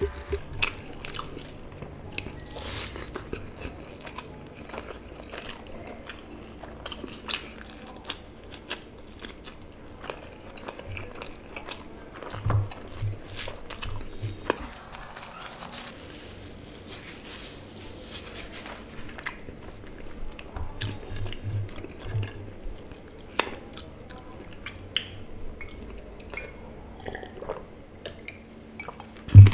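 Close-miked mouth sounds of a person eating rice and curry by hand: wet chewing and lip smacks with many small clicks. A single sharp knock near the end is the loudest sound.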